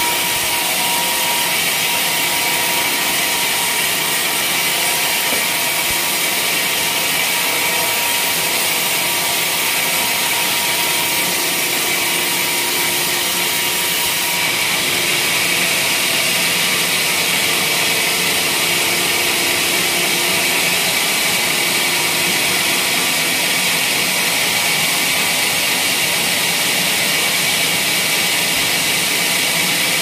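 Band sawmill blade cutting lengthwise through a waru (sea hibiscus) log: a steady, high-pitched rasp of the blade in the wood, with the mill running under load, unbroken throughout.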